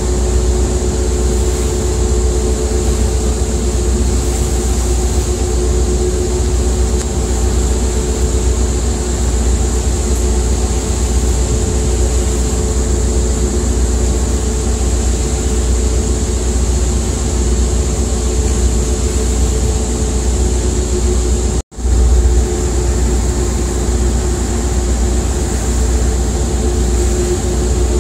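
Steady, loud engine drone with a deep rumble and a constant hum, cutting out for an instant a little over 20 seconds in.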